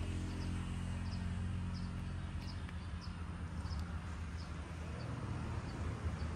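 Outdoor ambience: short, high chirps from insects or birds repeating about twice a second over a steady low hum.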